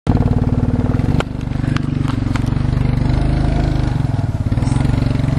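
Four-wheeler (ATV) engine running steadily, close and loud, towing a sled over grass. A few sharp clicks come between about one and two and a half seconds in.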